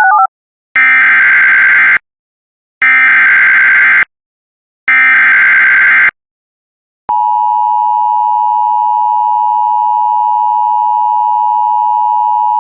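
Emergency Alert System SAME header: three identical bursts of screechy digital data tones, each about a second long, then about seven seconds in the steady two-tone EAS attention signal begins and holds.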